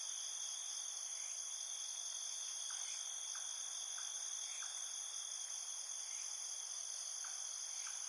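Steady high-pitched insect trill, as of crickets, running unchanged throughout. Faint short chirps repeat about every half second in places.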